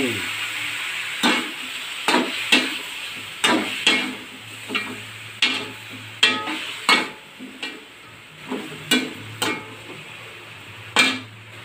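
Slotted metal spatula knocking and scraping against a metal wok as chicken pieces are stirred, in irregular strokes. A frying sizzle from the chicken in hot oil dies down over the first few seconds.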